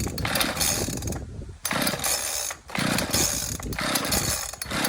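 Ryobi RCS4246B two-stroke chainsaw being pulled over on its recoil starter cord, several rough cranking strokes in a row with short gaps between them, the engine not catching.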